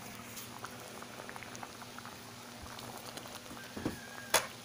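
Pot of mung bean soup boiling on a gas stove, bubbling with many small pops. A single sharp click comes near the end.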